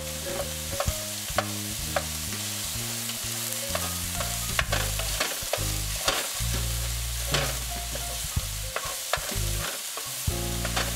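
Crumbled Italian sausage meat sizzling in a hot frying pan as a wooden spoon stirs it, with frequent light scrapes and taps of the spoon against the pan. Low bass tones shift in steps underneath.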